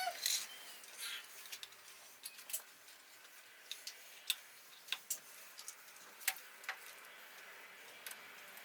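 Scattered light clicks and taps, a few each second at most, from small objects being handled, such as an LED strip and its fittings being worked onto the back of a TV.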